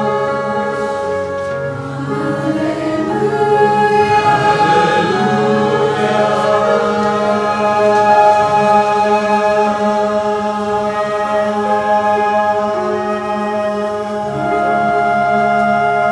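Mixed choir singing a sacred song, holding long sustained chords that shift now and then, with a new, louder chord about two seconds before the end.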